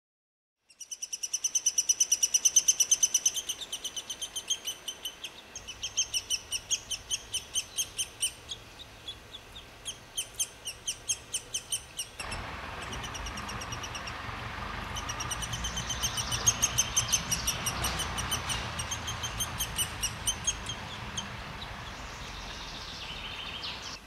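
Lesser spotted woodpeckers calling at the nest hole: repeated strings of rapid, high, thin notes, each string lasting a second or two. A steady background rush grows louder about halfway through.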